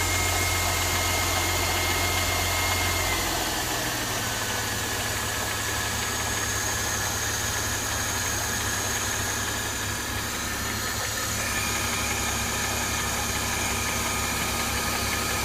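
Mercedes-Benz M272 V6 petrol engine idling as it warms up, with the metallic rustling, rattling noise that sets in once it is warm, which the owner hears as a knock. The idle drops slightly about three and a half seconds in, then stays steady.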